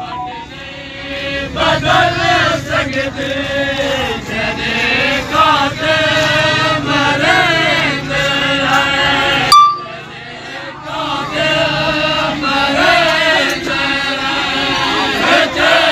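A group of voices chanting a noha, a Shia mourning lament for Imam Hussain, in unison. About ten seconds in there is a click and a short tone, then a brief dip before the chanting picks up again.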